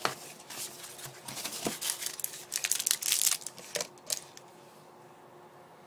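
Handling noise: a run of sharp clicks and crinkling rustles, densest about two and a half to three and a half seconds in, with a few last clicks before it stops about four seconds in.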